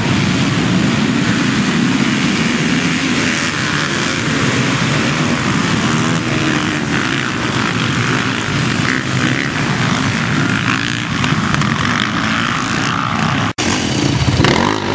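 A large pack of two-stroke and four-stroke enduro motorcycles running and revving together, a dense, steady engine drone. It breaks off for an instant near the end.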